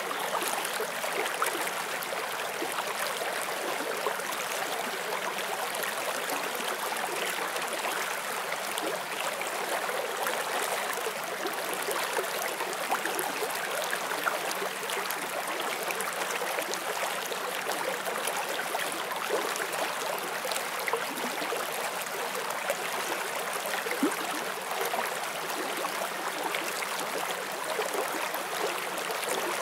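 Forest stream flowing steadily over rocks, a constant rush and babble of water.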